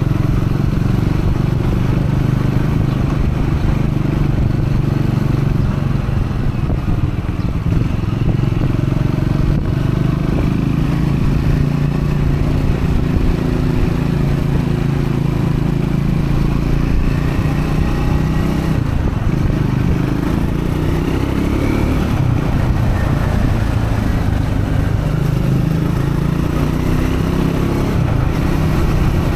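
A new Triumph Scrambler 400X's single-cylinder engine running under way during its break-in period, with a steady note that shifts about two-thirds of the way through as the revs change.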